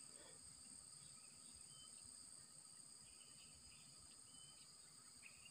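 Near silence: a faint, steady high-pitched chorus of insects, with a few tiny chirps.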